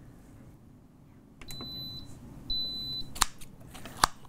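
Pampered Chef Quick Cooker's control panel beeping twice, two short high beeps about a second apart as it is switched to the sear setting. Then two sharp knocks of a chicken-shredding tool against a glass bowl.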